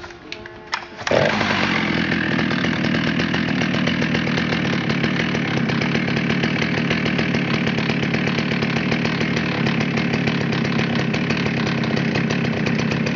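A 1972 Jonsered Model 52 two-stroke chainsaw starting about a second in, after a few light clicks, and then running steadily.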